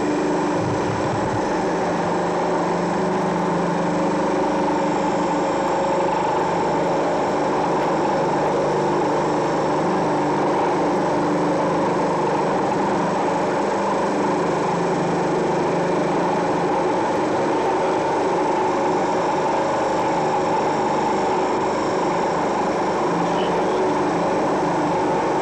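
Steady mechanical drone of a ship's engine and machinery heard from the bridge, several constant hums over a wash of wind and sea noise.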